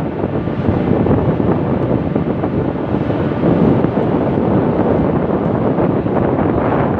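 Steady wind buffeting the microphone, a loud rough rumbling hiss with no distinct knocks or tones.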